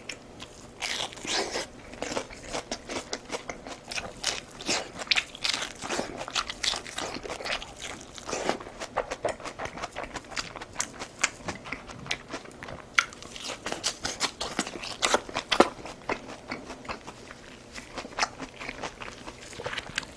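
A person eating close to the microphone: crunchy bites and chewing, with many irregular crisp crackles.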